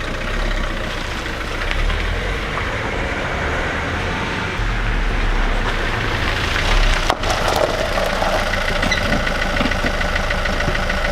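Renault Clio Mk3's diesel engine running, a steady low drone with a brief break about seven seconds in.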